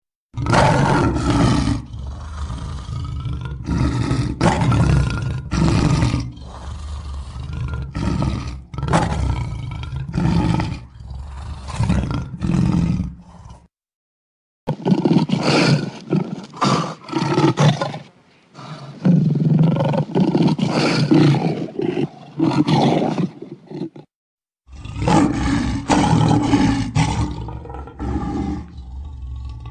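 Lion roaring: a long series of loud roars in three stretches, each cut off by a brief silence, about 14 and 24 seconds in.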